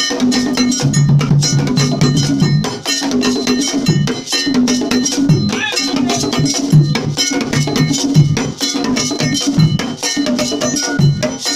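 Akan kete drum ensemble playing: large barrel drums struck with curved sticks in a fast interlocking rhythm, over a repeating pattern of clanging iron bells.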